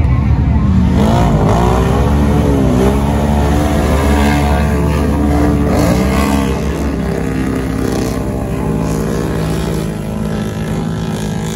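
ATV engines revving hard as they push through a deep mud pit. The pitch rises and falls over and over through the first half, then holds steadier and eases off a little near the end.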